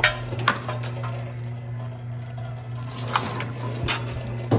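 Vevor 038-MDA electric wire stripping machine's motor running with a steady low hum, with a handful of sharp metallic clicks and clinks as heavy stripped wire is handled.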